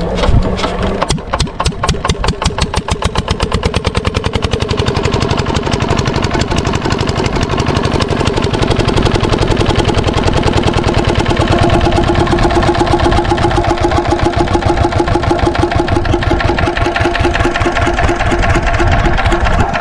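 8 hp single-cylinder diesel engine driving an irrigation water pump, just started: its firing beats are slow and uneven at first, pick up speed over the first few seconds, then settle into a steady run.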